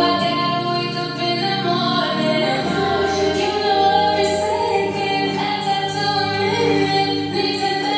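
Background music: a pop song with a woman singing.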